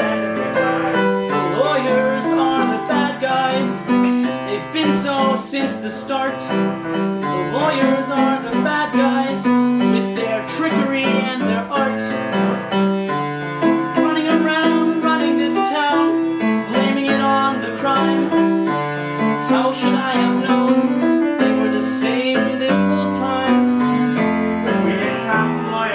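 Live piano accompaniment playing an instrumental passage, full chords over a moving bass line.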